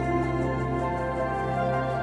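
Background music made of long held chords over a sustained low bass note.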